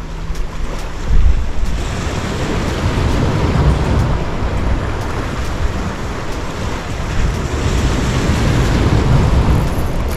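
Sea waves washing and breaking over concrete breakwater blocks, surging louder about a second in and again near the end, with wind buffeting the microphone.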